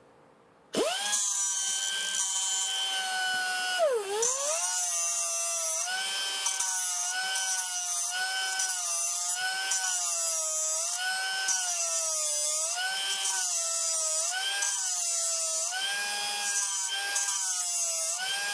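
Small air-powered cut-off grinder whining as its disc grinds the teeth of a reciprocating saw blade, giving each tooth back its hook. The whine starts a little under a second in, sags deeply about four seconds in, then dips about once a second as the disc bears on the teeth, over a steady hiss.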